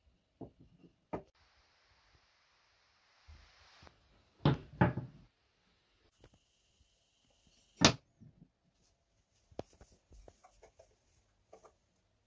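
Wooden marble-run track pieces and blocks being set down and knocked together by hand: scattered clacks of wood on wood. The loudest are a close pair about four and a half seconds in and a single sharp one near eight seconds.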